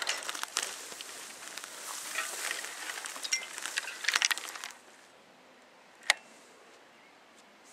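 Footsteps crackling and swishing through tall dry grass and weeds, stopping about four and a half seconds in. A single sharp click about six seconds in.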